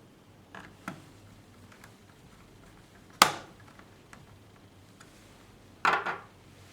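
Hard objects being handled on a work surface, most likely the laptop and its parts: two light clicks near the start, a sharp knock about three seconds in, and a short clatter of two knocks near the end.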